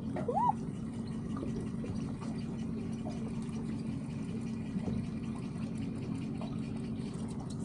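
Water lapping and trickling against a boat hull over a steady low hum, with faint fine ticking throughout. A brief rising squeak sounds just after the start.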